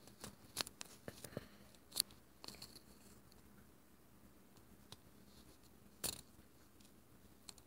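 Ginger kitten licking and nibbling at hands: faint, scattered wet mouth clicks and ticks, with a sharper click about two seconds in and another about six seconds in.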